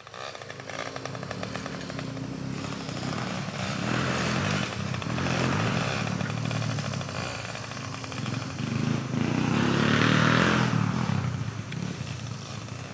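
Dirt bike engine running at high revs, swelling louder twice, about four and ten seconds in, then fading out near the end.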